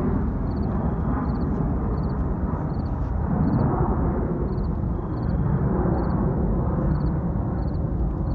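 Jet airliner climbing out after takeoff: a steady, deep rumble of its jet engines.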